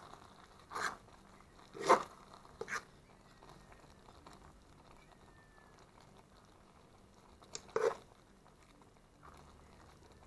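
Fork stirring rice and peas in a metal cooking pot: four brief scrapes against the pot in the first three seconds, and one more near the end.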